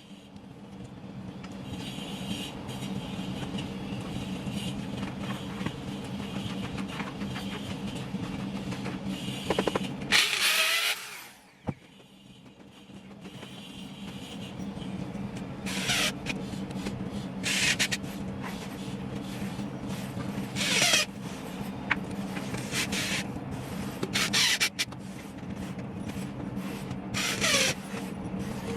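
A power tool running with a steady motor hum, cutting out about ten seconds in and starting again a couple of seconds later, with several short, loud, high-pitched bursts as it bites into the work.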